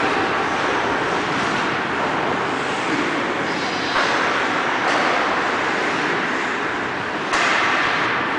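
Ice rink noise: a steady scraping hiss of hockey skate blades on ice, broken by three sharp knocks, about four, five and seven and a half seconds in; the last is the loudest.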